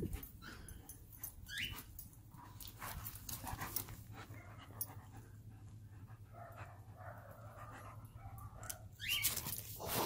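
Dog whining in short rising cries, once about a second and a half in and louder near the end, with quiet panting between.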